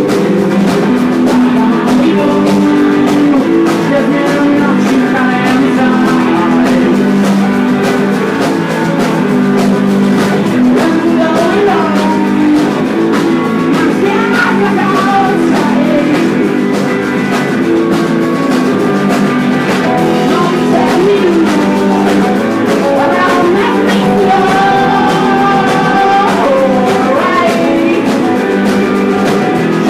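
Garage rock band playing live: guitars and a drum kit, with a voice singing.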